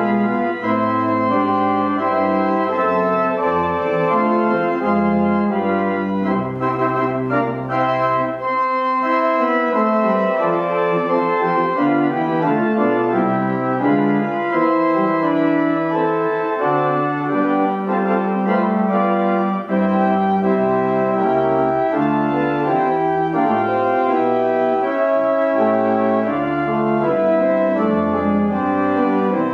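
Two-manual church organ playing in held, changing chords. The deep bass notes drop out about eight seconds in and come back about twenty seconds in.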